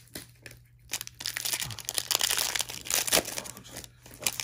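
Plastic wrapper of a trading card pack crinkling and tearing as it is ripped open, a dense crackle that is loudest for about two seconds in the middle.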